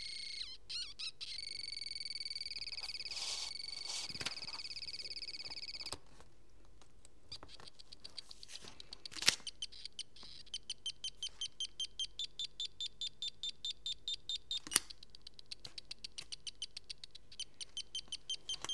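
Piezo buzzer of a solar-powered 74HC14 solar sound module. It buzzes with a high, fast-pulsing tone for about six seconds, then breaks into runs of rapid chirps at about four a second, with two sharper clicks in between.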